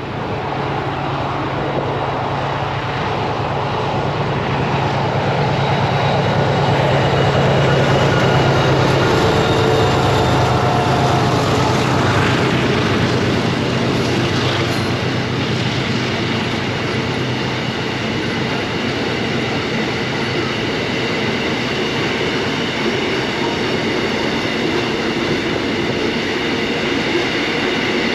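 Narrow-gauge acid train of GATX tank wagons rolling past close by with a steady rolling rumble of wheels on rail. A low, even diesel locomotive drone runs through the first half and fades out about two-thirds of the way in, with thin, high wheel squeal over the top.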